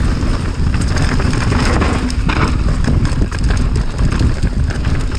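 Mountain bike descending a rough dirt forest trail, recorded on the rider's action camera: a heavy wind rumble on the microphone, with the bike rattling and the tyres knocking over roots and bumps.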